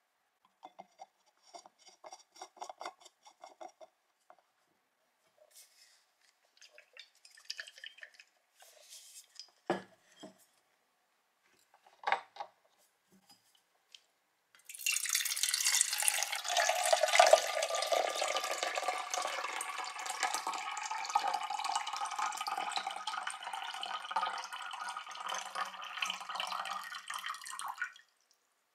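Water poured from a stainless steel YETI Rambler 12oz bottle into a clear measuring jug: a steady stream starts about halfway through and cuts off suddenly near the end. Before it come light clicking and a couple of sharp knocks as the bottle and its cap are handled.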